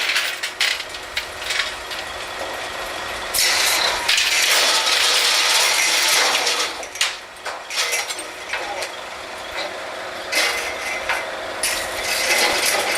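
Drilling rig floor machinery running during a pipe connection: a steady engine background broken by two long stretches of loud hissing, about three seconds in and again near the end, with scattered metallic knocks and clanks in between.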